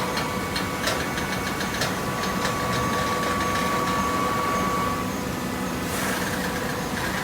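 Horizontal hydraulic waste paper baler running: a steady hum from its motor and pump, with a run of clicks and knocks in the first few seconds. A steady whine stops about five seconds in, and a short hiss follows about a second later.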